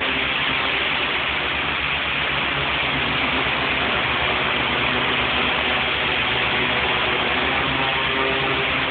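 Demolition hammer (jackhammer) running continuously on a construction site inside an underground car park: a loud, rapid, steady hammering with a dense harsh noise above it, echoing off the enclosed concrete space.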